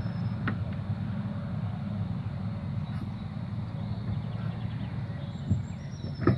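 Steady low rumble of wind buffeting the microphone, with a faint knock about half a second in and a sharper pair of knocks near the end.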